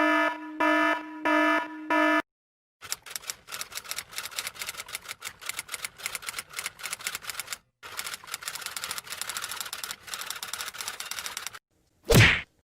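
Typewriter keys clacking rapidly for about nine seconds, with a brief pause midway. It is preceded by a short pattern of four electronic beeps and followed near the end by a short, loud noisy burst.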